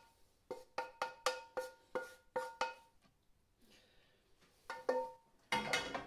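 Wooden spatula knocking and scraping food off a frying pan into a china bowl. A quick run of about eight ringing taps, each on the same pitch, then a single tap and a short clatter of scraping near the end.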